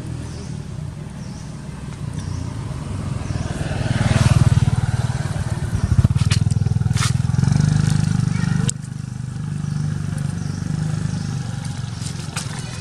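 An engine running with a steady low hum that grows louder around the middle and drops suddenly about two-thirds of the way through, with a few sharp clicks over it.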